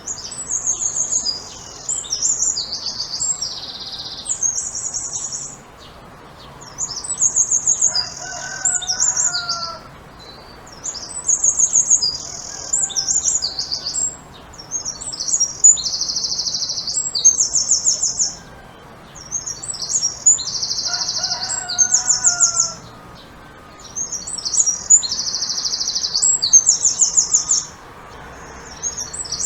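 A songbird singing high, rapid trilling and buzzy phrases, repeated in bursts of a few seconds with short pauses between. A faint lower call is heard twice behind it.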